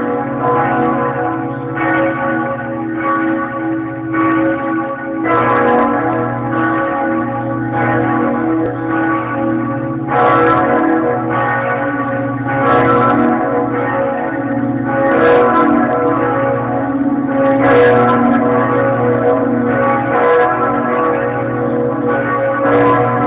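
Several church bells swinging and ringing together in a full peal, their strokes overlapping continuously at different pitches.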